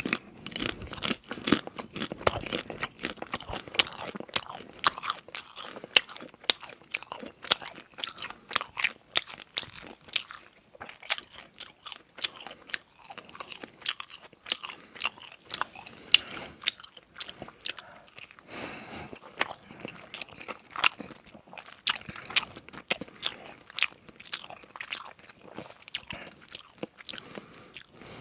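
A person eating close to the microphone: chewing and biting with many sharp, irregular crunching clicks, several a second.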